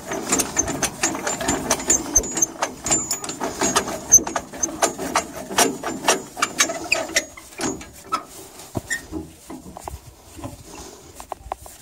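Irregular metal clicking and clanking as a fitting on the tractor's plough hitch is tightened with a wrench. It is busiest for the first seven seconds or so, then thins to fewer, quieter clicks.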